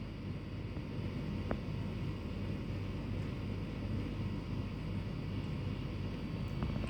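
Steady low rumble of background noise with two faint clicks, one about a second and a half in and one near the end.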